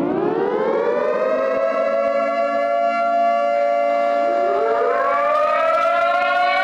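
Civil defense siren winding up, its pitch rising and levelling off into a steady wail. About four seconds in, a second, higher tone glides up and joins it, so the siren sounds a two-note chord.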